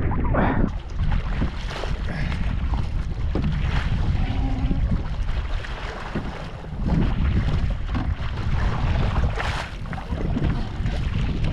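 Wind buffeting the microphone over water sloshing around a kayak on the open sea, with a few brief splashes.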